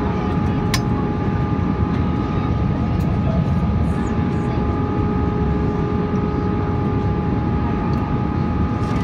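Cabin noise of an Airbus A321 in flight, heard inside the cabin at a window seat by the wing. A steady deep rush of airflow and engine noise runs under steady engine whine tones. A single sharp click comes just under a second in.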